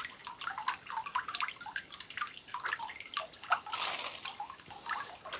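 Sap dripping and trickling into a sap collection tank: many quick, irregular drips with a couple of brief splashy rushes.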